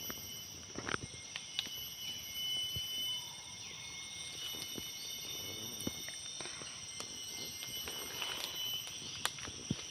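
Tropical rainforest ambience: a steady high-pitched insect chorus with several thin held tones, and scattered sharp snaps and crunches from the forest floor.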